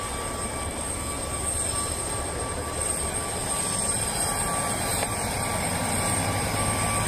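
Steady idling engine noise, a constant high whine over a low hum, from the bus and airliner standing on the apron.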